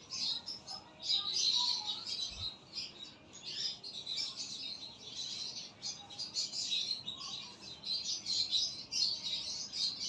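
A flock of lovebirds chattering, with many rapid, high chirps overlapping without a break.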